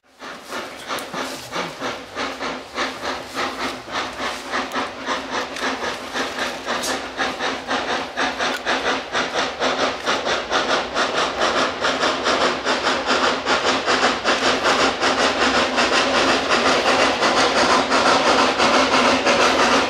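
Two narrow-gauge steam locomotives, Las49-3343 and Ryś TKb27-2002, double-heading a freight train, working hard with a fast, even beat of exhaust chuffs over a steady hiss. The chuffing grows louder throughout as the train approaches.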